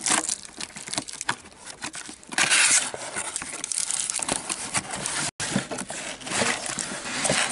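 Packaging being handled as the tool set is pulled out of its retail box: irregular crinkling and rustling, with a louder scraping rush about two and a half seconds in.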